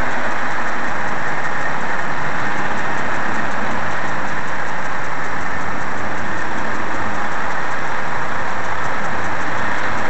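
Steady road and engine noise of a car driving slowly along a street, an even hiss with no changes.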